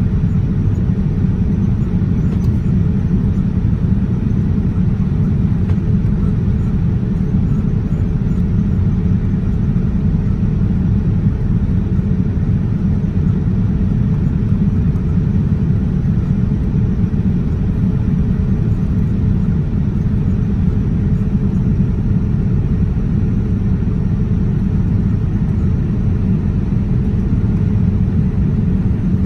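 Steady low rumble of a Boeing 787-9's engines and airflow heard inside the passenger cabin during the climb after takeoff.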